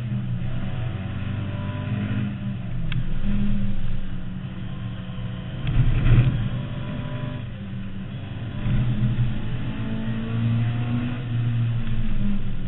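Inside the car: a Mk2 Ford Escort's 2.0 Pinto four-cylinder on twin 45 carburettors, revving hard and falling back several times as it is driven at speed. A brief louder rumbling thump comes about six seconds in.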